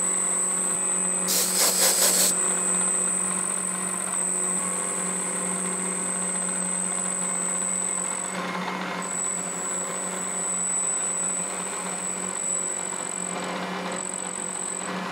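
Milling machine spindle running with a 1/4-inch carbide end mill cutting into the teeth of a hardened steel rack: a steady hum with a high whine, and louder gritty cutting noise about a second and a half in and again about eight seconds in.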